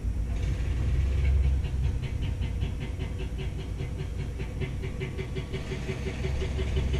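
Saez TLS80 tower crane's drive machinery running: a low hum with a steady whine and a fast, even ticking of about five a second that starts about half a second in.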